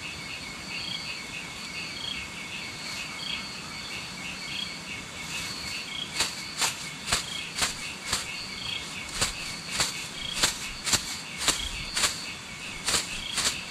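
Crickets and other insects chirping steadily. About halfway through, a run of sharp clicks starts, about two a second.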